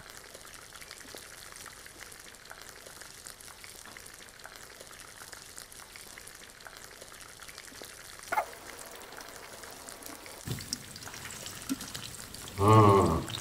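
Shami kababs shallow-frying in hot oil in a pan: a steady, fine crackling sizzle. A single short sharp sound comes about eight seconds in, and a brief bit of voice near the end.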